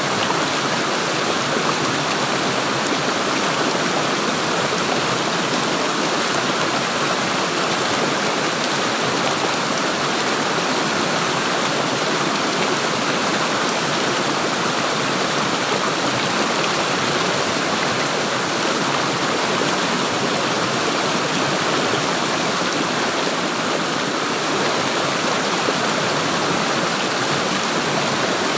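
Running water flowing and gurgling steadily, like a stream over stones, with no breaks or changes.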